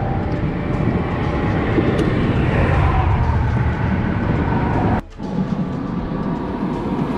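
Steady rumble of road traffic running past on the bridge, with a few faint steady tones through it. It cuts out for a moment about five seconds in and then carries on.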